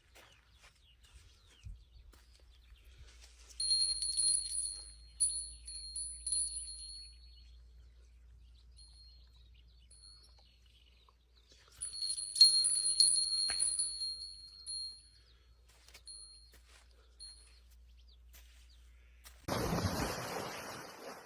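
A high-pitched electronic tone sounds twice in long runs of a few seconds, each trailing off into short beeps. A burst of rushing noise comes near the end.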